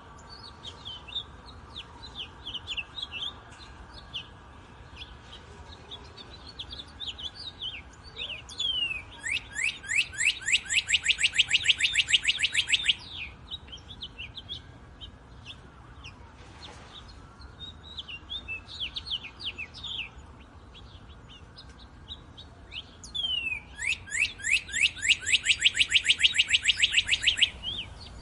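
Northern cardinal singing: two long, rapid series of steeply falling whistled notes, each lasting about four seconds and growing louder, one about ten seconds in and one near the end. Scattered short high chirps fill the gaps between them.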